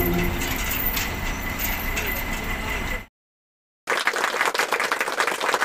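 Diesel engine of an XCMG truck crane running steadily under a noisy wash. It cuts off abruptly about three seconds in. After a brief silence a rough, crackly noise takes over.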